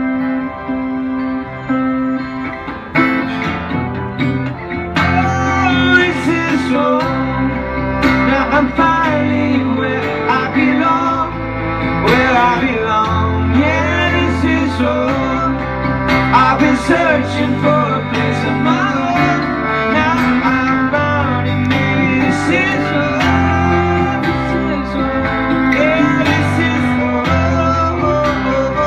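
Live instrumental break of a slow rock song: a guitar melody with bending notes over held chords from a large outdoor pipe organ.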